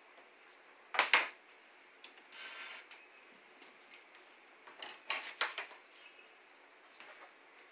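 Kitchen items being handled on a countertop: a sharp clatter about a second in, a short scrape, then a few quick knocks a little past halfway.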